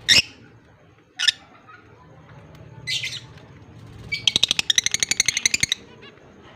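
Pet lovebirds calling: three short, sharp, high chirps a second or two apart, then a fast chattering run of rapid repeated notes for about a second and a half.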